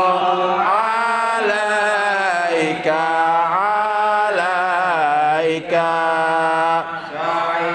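Men chanting a devotional Arabic salawat in long, drawn-out melodic phrases over a steady low held note, with short breaths between phrases.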